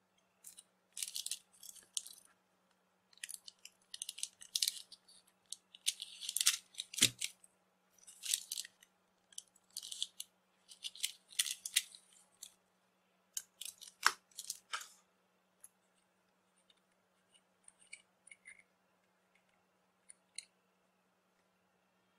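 Steel screw-down watch case back being unscrewed with a metal case-back wrench: repeated short metallic rasps and scrapes as the wrench and threads turn, with a knock about seven seconds in and a sharp click about halfway. Fainter clicks follow near the end, over a steady low hum.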